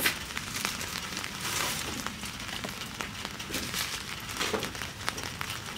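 Plastic postal mailer and the wrapping inside crinkling and rustling in irregular crackles as the package is opened and its contents pulled out.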